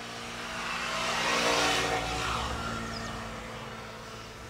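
A road vehicle passing by: a rushing sound that swells to its loudest about a second and a half in and then fades away.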